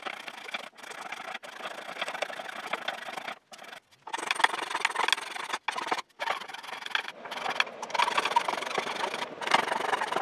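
Hand saw cutting wood in quick back-and-forth strokes, trimming protruding wooden dowels flush with a chair leg. The strokes come in uneven runs, with a few brief pauses.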